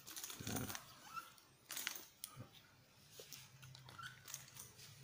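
Faint clicks and metallic clinks of a light metal tripod's legs being handled as their sections are collapsed, in a few short clusters during the first half.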